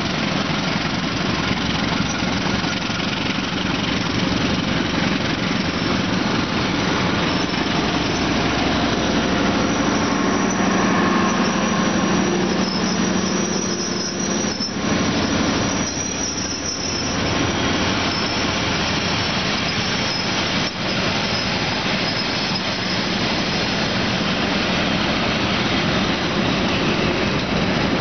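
Passenger train coaches rolling past close by: a steady loud rumble of steel wheels on the rails, with thin wheel squeals coming and going around the middle.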